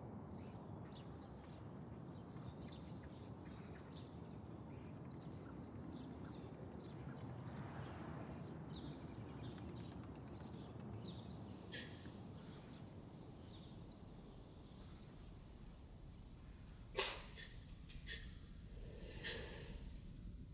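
Quiet ambience: a steady low hum with faint bird chirps over it for the first half. Late on comes a single sharp knock, followed by two fainter clicks.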